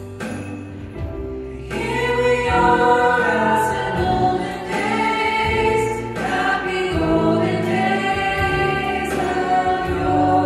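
Church worship band and a group of singers performing a Christmas song together, voices and instruments in harmony. The music swells fuller about two seconds in.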